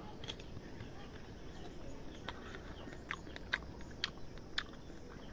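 A person chewing a fresh guava: a series of irregular sharp crunches, roughly one every half second.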